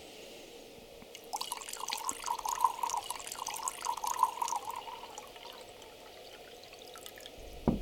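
Wine poured from a bottle into a silver goblet: liquid splashing into the cup for about four seconds, then stopping. A short low thump near the end.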